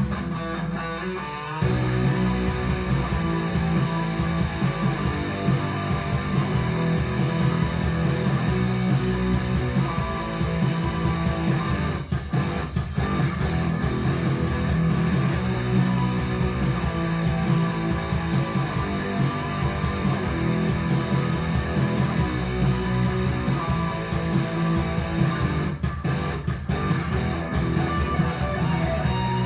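Guitar-led instrumental music with plucked and strummed guitar and bass, played back through a Fosi Audio ZA3 class-D amplifier and its speakers. The fuller low end comes in about a second and a half in.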